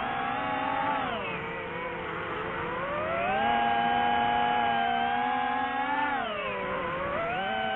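Drone motors and propellers whining, the pitch changing with throttle: it dips about a second in, climbs around three seconds and holds, dips again about six seconds in, then climbs near the end.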